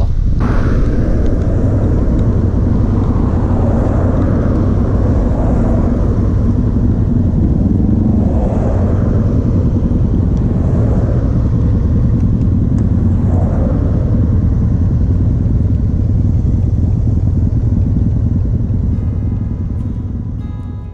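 Suzuki V-Strom 650XT's V-twin engine running under way, mixed with wind rush on the handlebar-mounted camera. The engine note rises and falls a few times, and the sound fades in the last couple of seconds as the bike slows to a stop.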